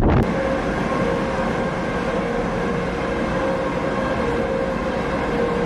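A steady mechanical drone with a constant whine held at one pitch, from an engine or turbine running.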